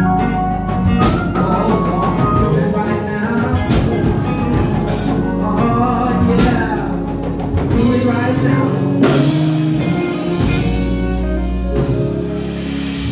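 Live church praise music: voices singing over a band with a drum kit keeping the beat.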